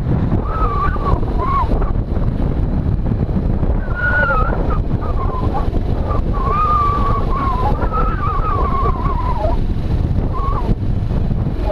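Small motorcycle riding down a rough gravel road: a heavy, steady rumble of wind buffeting the microphone, tyres on gravel and engine. Over it a thin, wavering higher tone rises and falls several times, coming and going.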